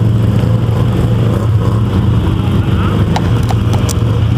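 ATV engine running at a steady speed, with a few short sharp clicks near the end.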